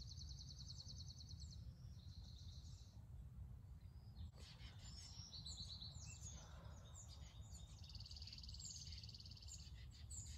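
Faint bird calls: high, fast trills near the start, in the middle and near the end, with scattered short chirps, over a low steady rumble.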